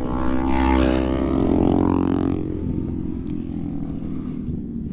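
A motorcycle engine running at a steady pitch, loudest over the first two seconds and then fading to a lower level.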